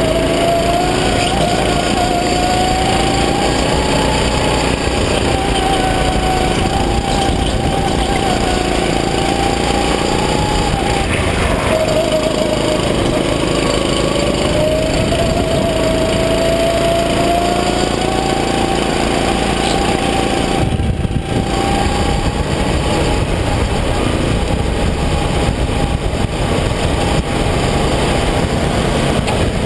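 Rental go-kart engine at speed, heard from onboard, its pitch rising and falling as the kart comes off the throttle for corners and accelerates out of them, with a clear dip about halfway through before it climbs again.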